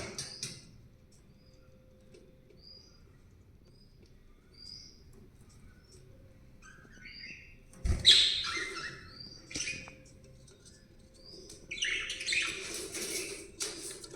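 Budgerigars chirping, with scattered short chirps at first. A sharp knock comes about eight seconds in, followed by busier, denser chattering.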